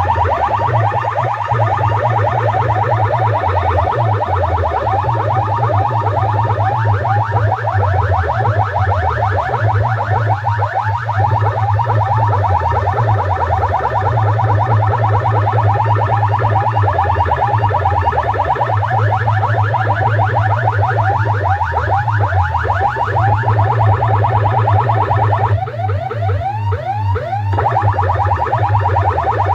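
Large DJ sound-system speaker boxes playing an electronic siren-like alarm effect: fast, repeating rising sweeps over a steady heavy bass. The sweep pattern breaks briefly into slower glides about 26 seconds in.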